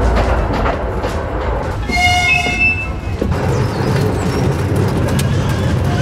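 Miniature railway train running, with a short whistle toot about two seconds in, over background music.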